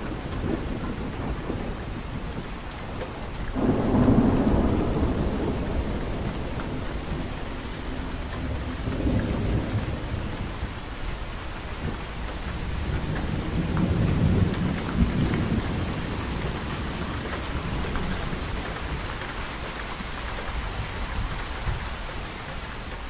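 Steady rain with rolling thunder: low rumbles swell about four seconds in, again around nine seconds, and a longer roll around fourteen to fifteen seconds, and the rain begins to fade at the very end.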